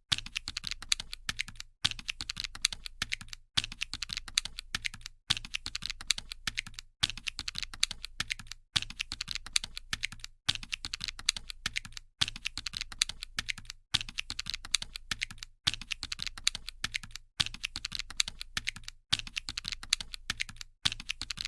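Calculator keys pressed quickly by finger: fast runs of small plastic clicks, each run lasting under two seconds and cut by a brief silent gap, over and over at an even pace.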